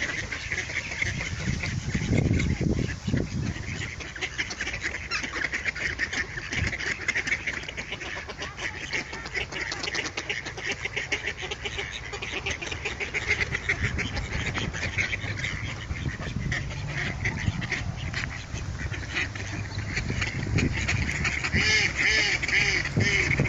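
A flock of mallards quacking and chattering, many calls overlapping in a rapid, continuous stream, with a louder run of quacks near the end.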